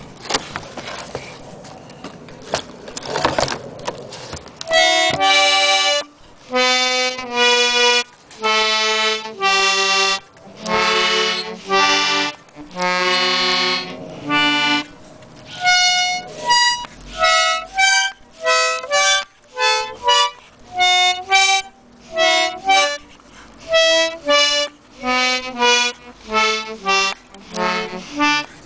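Vintage German Hohner button accordion being played key by key, its reeds sounding single notes and chords with short breaks between them, the notes growing shorter and quicker toward the end. The first few seconds hold only rustling handling noise before the reeds sound.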